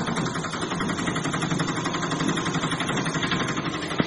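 Sound effect of a small engine idling with a fast, steady putter, with a short click near the end.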